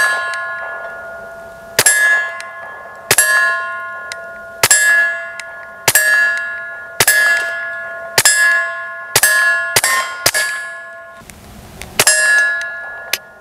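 Taurus TX22 .22 LR pistol fired unsuppressed, about eleven shots at a steady, unhurried pace. Nearly every shot is followed by the ringing clang of a hit on a steel plate target, a few steady tones fading over about a second.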